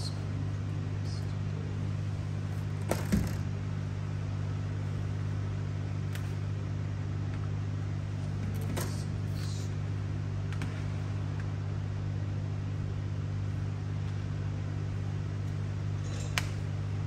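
Steady low machine hum with a few scattered clicks; the loudest knock comes about three seconds in.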